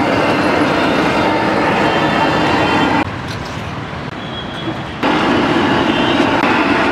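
Steady traffic noise from a busy road, dropping abruptly to a lower level about three seconds in and jumping back up about two seconds later.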